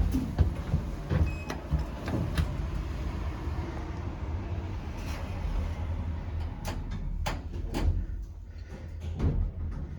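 Orona passenger lift: a steady low hum with clicks and knocks scattered through it, the sound of the lift's mechanism and doors at work.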